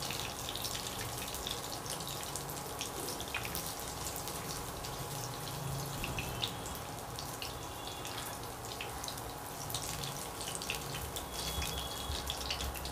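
Batter-coated topse fish frying in hot oil in a nonstick pan: a steady sizzle full of fine crackles. A few light knocks of a wooden spatula come as the fried pieces are lifted out.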